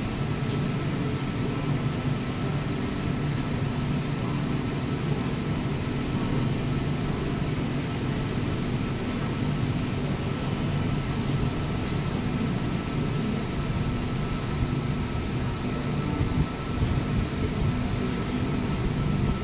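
Double-deck electric trains at a station platform: a steady low mechanical hum with a thin steady whine above it. It grows rougher and a little louder over the last few seconds as an arriving train pulls in alongside.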